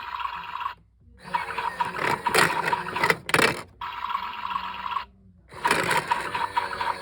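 Small motor of a battery-powered toy washing machine whirring as its drum spins. The sound cuts out abruptly twice and starts again, as the drum sticks, and a few knocks come from items tumbling inside.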